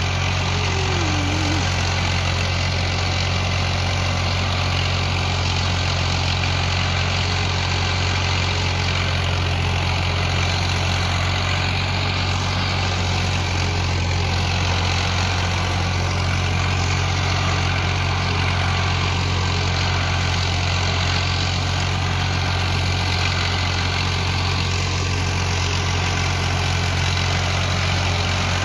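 Tractor's diesel engine running at a steady speed while it drives a rotary tiller through the soil: a constant low drone with no changes in pace.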